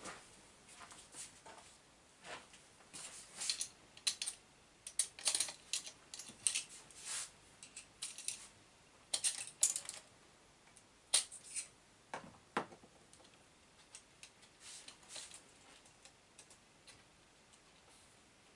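Small metal parts and hand tools clicking and rattling as the front axle of a large RC monster truck is assembled. The light clicks are irregular and busiest in the first two thirds, with a slightly heavier knock about twelve and a half seconds in. They thin out to the odd click after that.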